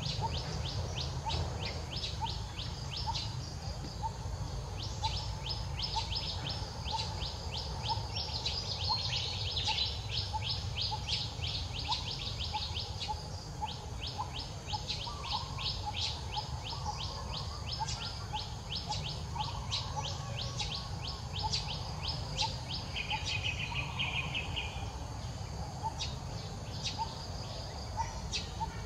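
Outdoor ambience: long runs of rapid, high-pitched chirps, several a second, broken by short pauses, over a steady low rumble.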